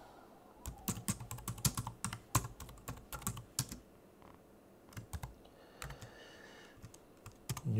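Computer keyboard typing: a quick run of keystrokes for about three seconds, then a pause broken by a few scattered keys.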